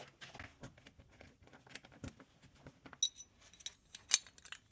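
Faint metallic clicks of keys and lock hardware being handled, with a short ringing clink of keys about three seconds in and a few sharper ticks after it.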